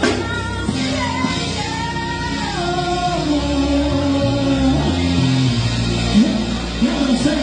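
Live band playing a slow 90s R&B song with a woman singing lead over bass and drums. Her sung line glides downward through a long, drawn-out phrase in the middle.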